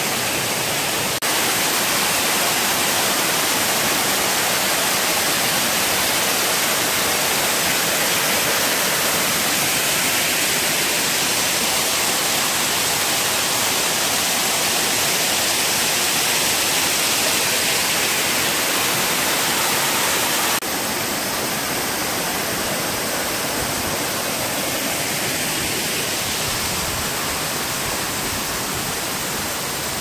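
Waterfall cascading down a rock face: a steady, dense rush of falling water. It steps abruptly louder about a second in and slightly quieter about twenty seconds in.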